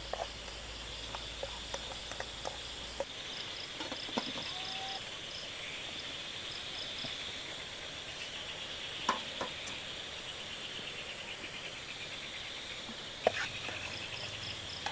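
Steady chorus of forest insects chirring in a high band, with a faster pulsed trill above it. A few sharp clicks or knocks cut in, the loudest about 13 seconds in.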